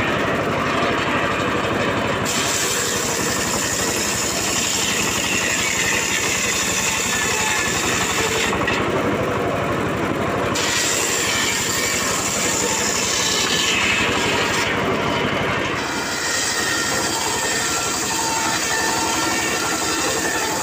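Homemade table circular saw ripping acacia planks lengthwise, the spinning blade cutting steadily through the wood over the machine's continuous running. The high hiss of the cut thins out briefly twice.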